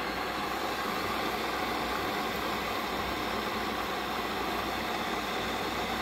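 Electric kettle boiling with its lid open: a steady rushing, bubbling noise from the water at a full boil.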